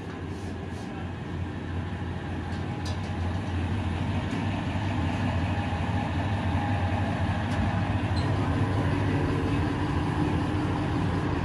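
Steady low hum and drone of hydraulic brake-lining moulding presses running, slowly growing louder, with a few faint metal clinks.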